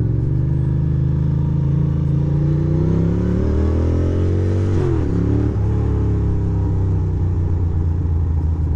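2006 Ducati Monster 620's air-cooled V-twin engine pulling under way, its pitch climbing steadily for about five seconds, then falling off sharply and running on at an even pitch.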